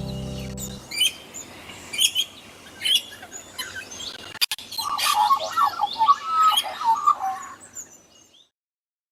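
A bird chirping and singing: short, sharp, high chirps about once a second, then a busier, warbling run of song from about five seconds in. The last held low notes of music fade out in the first second.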